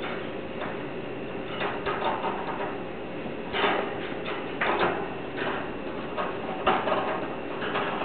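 Hollow plastic toy ball scraping and rattling against the wire bars of a budgie cage as the budgie pushes it from inside, in a string of irregular scrapes; the loudest come about three and a half and four and a half seconds in.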